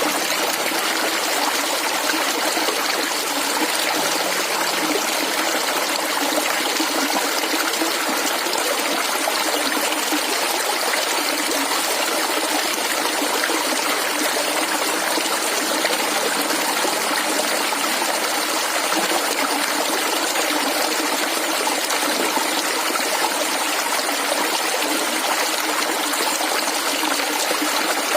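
Shallow flowing water gurgling and trickling steadily over stones.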